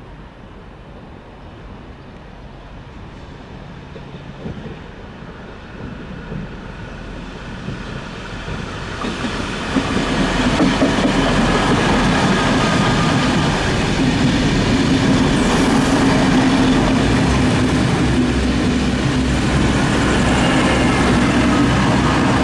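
Several coupled DB Class 612 diesel multiple units approach and pass close by: the diesel engines and wheels on the rails grow louder over the first ten seconds or so, then run loud and steady with a constant low hum as the cars go by.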